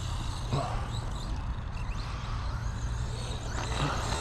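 Team Associated Pro2 SC10 brushless RC short-course truck running at some distance, its motor faint, over a steady low rumble.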